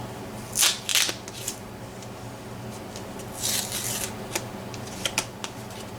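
Small metal parts of a lock being handled and worked loose during disassembly: short scraping rustles, then a few sharp metallic clicks near the end.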